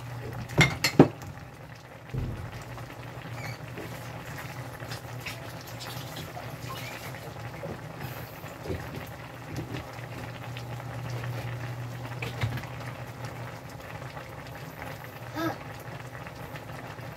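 Ginataang alimasag (crabs with squash and string beans in coconut milk) simmering and bubbling in a frying pan, over a steady low hum. Two sharp knocks come just under a second in.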